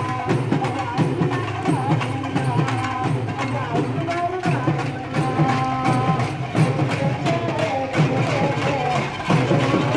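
Urumi melam ensemble playing: dense, fast drumming with a wavering melody line over it.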